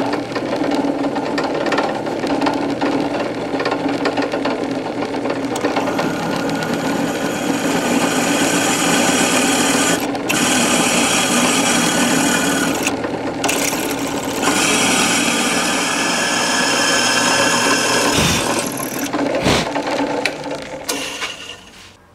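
Drill press running with a number 25 twist drill cutting tap holes into a cast iron cylinder head: a steady motor hum under the grinding of the bit in the iron, with a few brief gaps. It stops about a second before the end.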